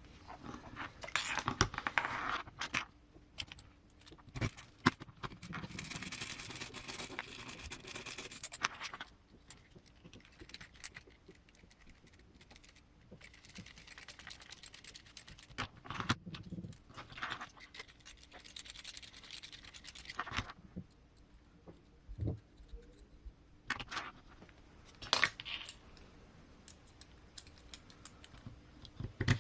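Small plastic and metal parts of an RC crawler transmission being handled and fitted by hand: scattered clicks and taps, with several stretches of scraping and rustling.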